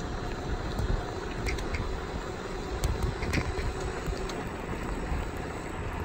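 Wind noise buffeting the microphone as it moves along, an uneven low rumble, with a few scattered light clicks.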